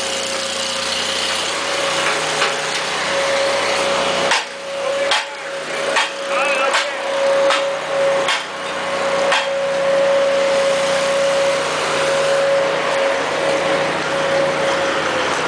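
Steady engine and machinery hum in a paper mill truck yard, with a continuous whine over it. A string of sharp knocks comes between about four and nine seconds in.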